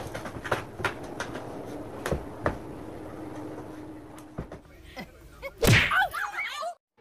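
Two cats play-fighting at an armchair: a run of sharp taps and slaps in the first couple of seconds, thinning out after. About five and a half seconds in, a loud brief cry with wavering pitch is the loudest sound.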